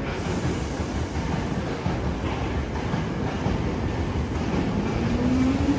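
Hankyu electric commuter train pulling out of the station close by, its wheels rumbling steadily on the rails. Near the end the traction motors' whine sets in and rises in pitch as the train gathers speed.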